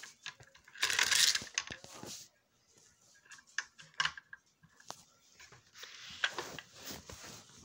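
Handling noise from a small toy-car box: a sliding, scraping rustle about a second in, then scattered light clicks and taps and more rustling as the packaging is worked open.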